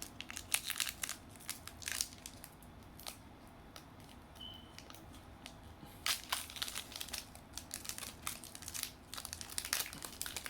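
Foil Pokémon Cosmic Eclipse booster pack wrapper crinkling and tearing as it is opened by hand, in bursts of sharp crackles, quieter for a few seconds in the middle and busier again in the second half.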